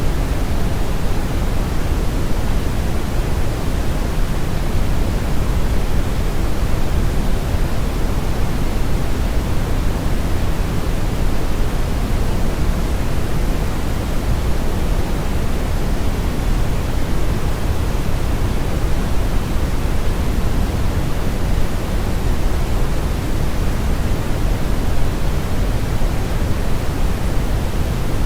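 Synthetic brown noise blended with white noise: a steady, unbroken hiss, heaviest in the deep rumble and thinner toward the top.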